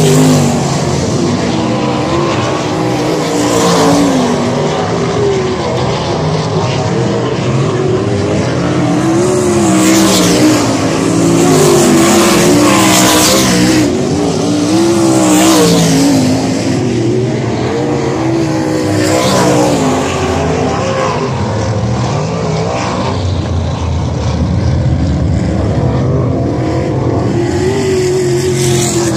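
Several dirt-track race car engines running laps together, their pitch rising and falling as the cars accelerate, back off and pass, with the loudest passes around the middle.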